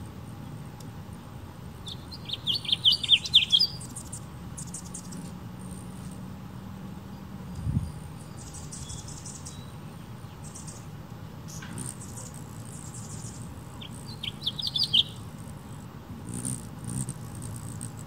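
Hummingbird chattering: two quick bursts of rapid, high chirping notes, one about two seconds in and another near the end, over a faint steady background hum.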